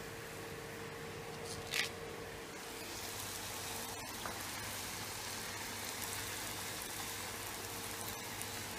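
Wheat-flour dough shapes deep-frying in hot oil in a wok, a steady sizzle that fills out about three seconds in. One brief sharp knock about two seconds in, over a faint steady hum.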